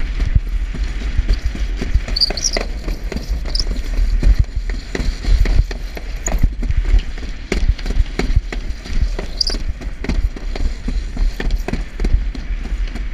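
Alpine slide sled running fast down its chute: a heavy low rumble with a steady stream of irregular knocks and clatter.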